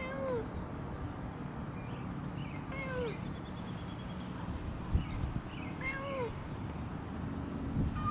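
Tabby cat meowing three times, about three seconds apart, each call rising and then falling in pitch.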